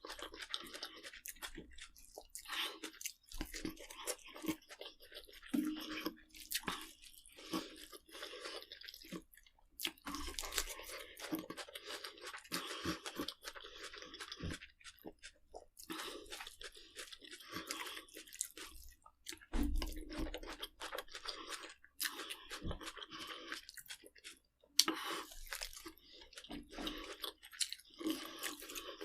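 A person chewing crunchy food, with many irregular crunches.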